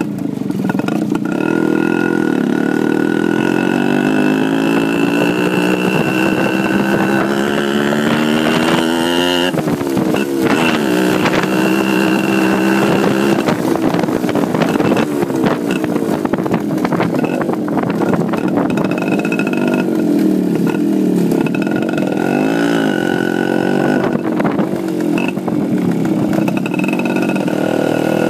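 Motorcycle engine heard from on board while riding. Its pitch climbs steadily as it accelerates for several seconds, drops suddenly about nine seconds in, then rises and falls with the throttle for the rest of the ride.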